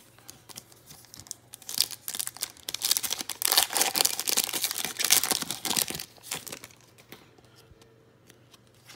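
Foil wrapper of a 2017-18 Donruss Optic basketball card pack crinkling and tearing as it is ripped open by hand. Dense crackling starts about two seconds in and stops about six seconds in, followed by a few light clicks as the cards are handled.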